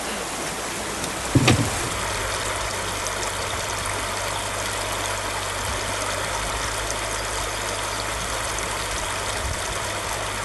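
River current flowing steadily past the boat, a continuous rushing of water. A single sharp thump comes about a second and a half in, followed by a faint steady hum under the water noise.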